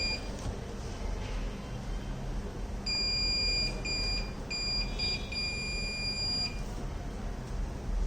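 Electronic buzzer on the receiver's buzzer board sounding a steady high-pitched tone in stop-start spells. A short spell ends just after the start, then from about three seconds in come several beeps of uneven length for about three and a half seconds. It is the alarm's audible alert that the MEMS accelerometer's tilt has crossed the bridge-damage threshold.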